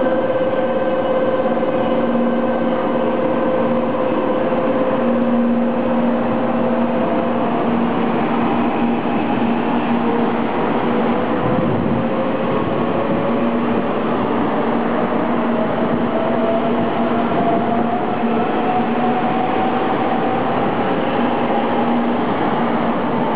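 JR 300 series Shinkansen pulling out of the platform. The whine from its GTO inverter and traction motors holds steady at first, then rises slowly in pitch from about ten seconds in as the train gathers speed, over the running noise of the passing cars.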